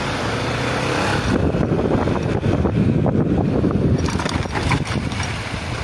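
Wind buffeting the camera microphone: a rough low rumble that swells for a couple of seconds a little after the start.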